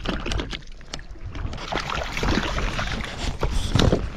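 Hooked brook trout splashing and thrashing at the surface close to a float tube as it is brought to the landing net. The water is disturbed throughout in irregular splashes, loudest near the end.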